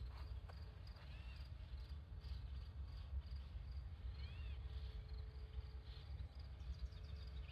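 Outdoor ambience: faint insects chirping in short high pulses, with two short high chirps about a second and four seconds in, over a steady low rumble.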